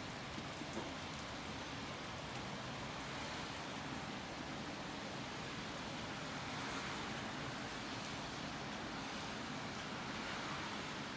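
Steady rain falling, an even hiss with faint ticks of drops. The hiss swells slightly in the second half.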